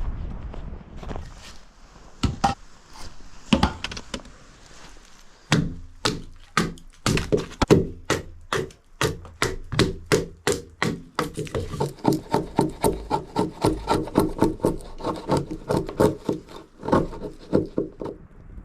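Firewood being chopped: a few scattered knocks, then about five seconds in a fast run of sharp strikes on wood, two to three a second, with the struck wood ringing in the later strikes.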